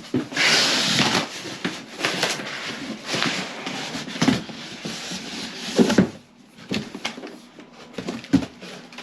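Packaging being handled and opened: a burst of rustling near the start, then scattered knocks and handling noise.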